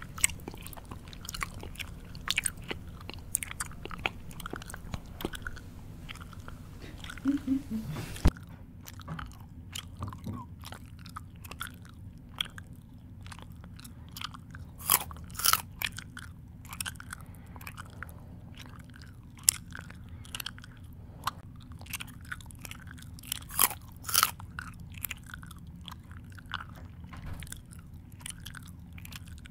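A person chewing close to the microphone: irregular wet smacks and mouth clicks, some louder than others, with a shift in the background noise about eight seconds in.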